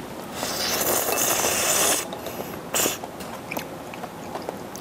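Close-up eating sounds: chewing and mouth noises over a mouthful of octopus and tripe hotpot, with a longer rushing noise from about a third of a second in to two seconds and a shorter one near three seconds, among small clicks.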